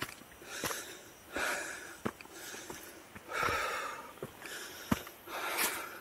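A person breathing hard while walking, a breath every second or so, with a few sharp footfalls between the breaths.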